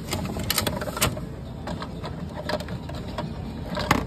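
Coin-operated toy vending machine being worked after four coins are fed in: a series of irregular mechanical clicks and knocks, with a louder knock near the end.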